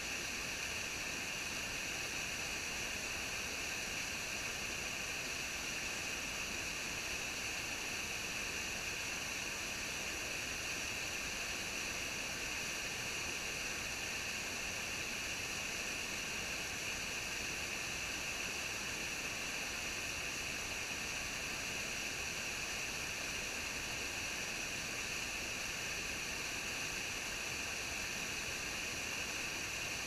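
Waterfall pouring steadily: an even, unbroken rushing hiss, brightest in the upper-middle pitches.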